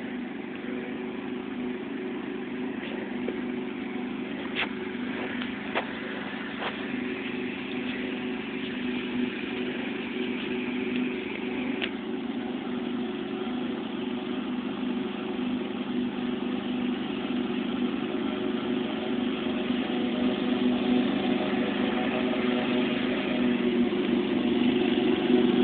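Riding lawnmower engine running steadily, getting gradually louder toward the end.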